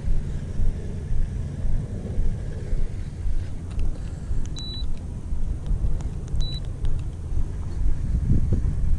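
Wind buffeting the microphone: a low rumble that keeps swelling and easing. About four and a half seconds in, and again two seconds later, comes a short high beep.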